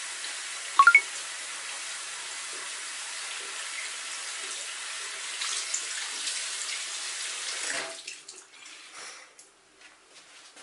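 Bathroom washbasin tap running steadily and turned off about eight seconds in, followed by a few faint clicks. A short high squeak sounds about a second in.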